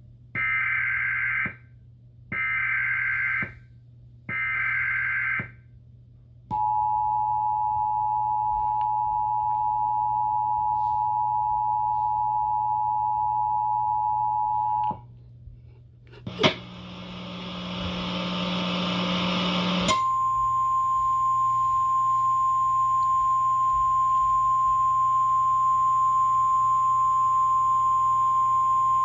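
Emergency Alert System broadcast tones: three short bursts of the digital SAME header data, then the two-tone EAS attention signal for about eight seconds. After a few seconds of static hiss with a crackle, a single steady warning tone, the NOAA Weather Radio alert tone, sounds for about nine seconds ahead of a tornado warning.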